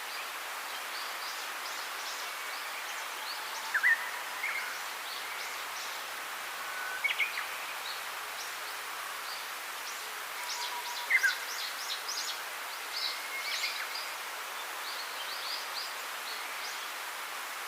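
Birds chirping and calling over a steady hiss: many short high chirps and quick falling whistles, the loudest calls about 4, 7 and 11 seconds in.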